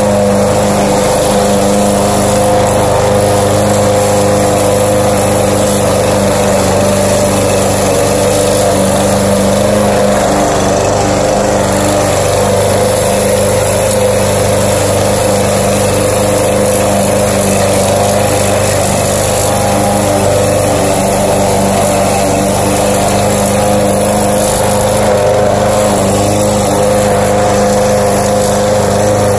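Gasoline walk-behind rotary lawn mower engine running at a steady speed while mowing grass.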